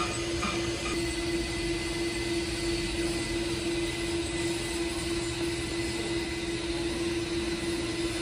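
A steady mechanical drone: an even rushing noise with one constant humming tone under it, unchanging in level.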